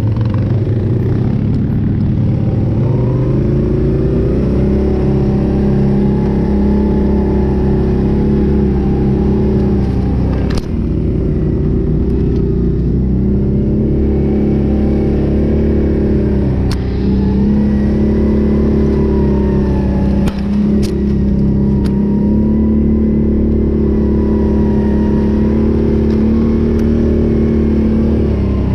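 Can-Am Renegade 800 ATV's V-twin engine running under throttle on a trail, revs climbing early on and dipping briefly then picking up again several times. A few sharp knocks come through over the engine.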